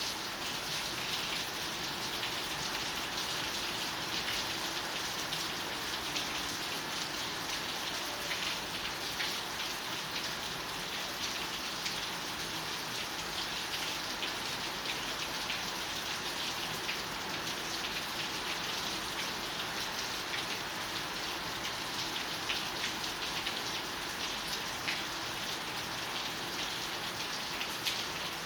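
Steady rain falling, a constant hiss with many small sharp drop hits scattered through it.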